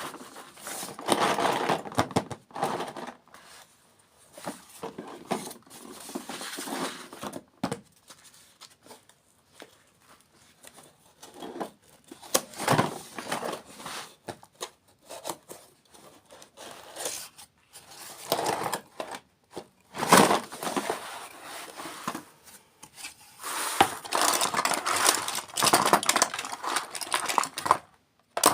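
Close-miked eating sounds of sweets and desserts: irregular bites and chewing with crackly, crunchy bursts and short pauses between them.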